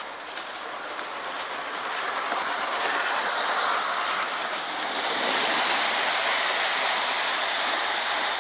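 Gauge 1 live-steam model train running past on the garden track: a steady rushing hiss of steam and wheels on the rails, growing louder from about two seconds in and loudest around five to six seconds in as the coaches go by close.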